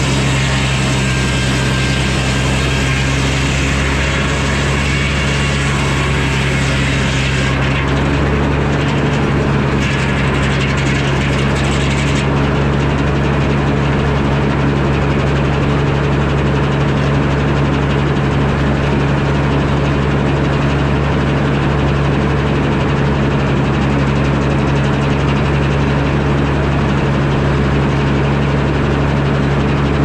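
Engine powering a Frick sawmill, running at a steady speed, with a high hiss over it that eases off about seven seconds in and drops away about twelve seconds in.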